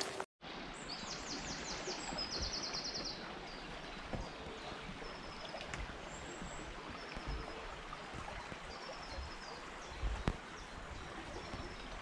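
Woodland ambience: a steady rushing background, with small songbirds singing high. A fast trill of repeated notes comes in about a second in, followed by short high phrases. A soft low bump comes about ten seconds in.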